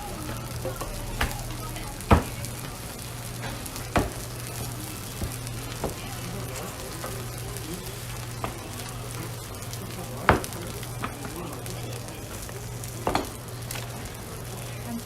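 Korean pancakes frying in oil on a hot griddle: a steady sizzle with a low hum underneath. About eight sharp knocks and clacks of a spatula or turner against the griddle come at irregular intervals, the loudest about two seconds in and about ten seconds in.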